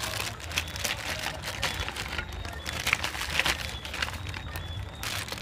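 Crackers tipped from a plastic packet into a simmering skillet over a charcoal fire: the packet crinkling, with irregular clicks and crackles throughout.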